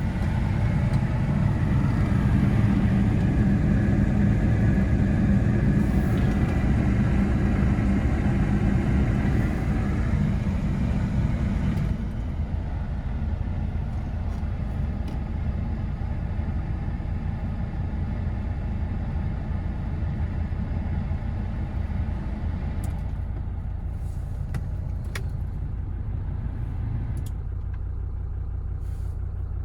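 Mercedes-Benz W123 engine idling steadily at operating temperature. About twelve seconds in, an added higher-pitched layer cuts off suddenly and the sound drops to a quieter, steady idle, with a few faint clicks near the end.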